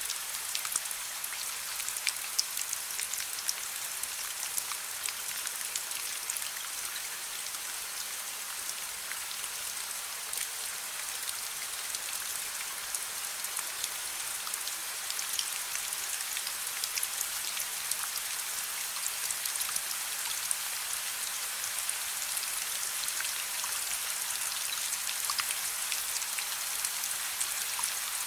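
Steady rain: an even hiss dotted with many small, sharp ticks of drops and crackles from a gently crackling fireplace mixed in.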